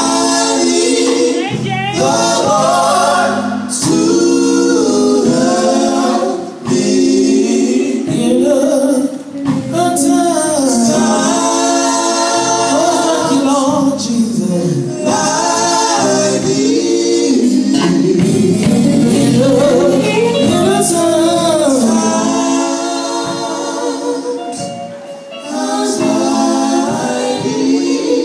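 Male gospel vocal group singing, several men's voices together in phrases with brief breaks between them.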